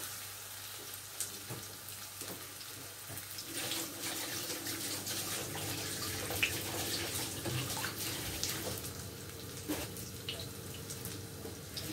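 Breaded chicken breast sizzling in hot oil in a frying pan: a steady hiss with scattered small crackles.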